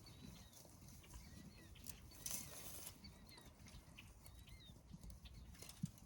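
Faint outdoor sound of horses moving about: soft hoof knocks, a short breathy rush about two seconds in and a sharper knock near the end, with small high chirps throughout.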